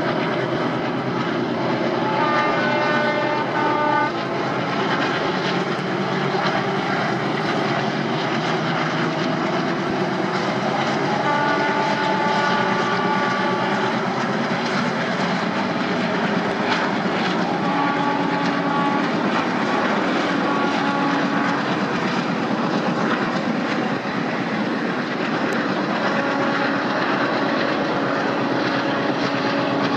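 A pair of ALCo diesel locomotives working under power, their engines giving a loud, steady drone throughout. Several short bursts of steady high tones sound over it.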